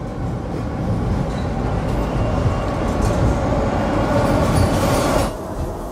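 Subway train rumbling and rattling as it pulls away, growing louder, then cutting off suddenly about five seconds in.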